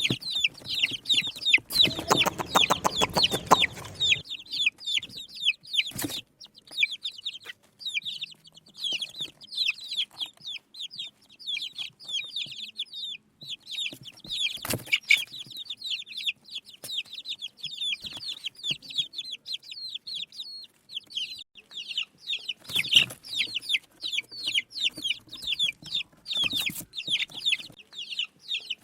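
A brood of baby chicks peeping rapidly and without pause, many short high cheeps sliding downward in pitch. A rapid rattling noise covers them for a couple of seconds near the start, and a few short knocks come later.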